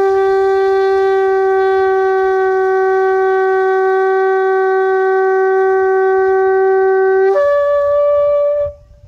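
A long spiralled Yemenite-style shofar blown in one long, steady blast. The held note jumps up to a higher note about seven seconds in, then cuts off shortly before the end.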